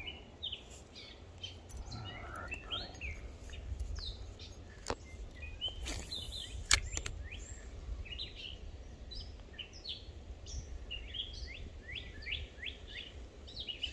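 Songbirds calling throughout in quick runs of short descending chirps. About halfway through comes a brief swish and a sharp click, the loudest sound, over a steady low rumble.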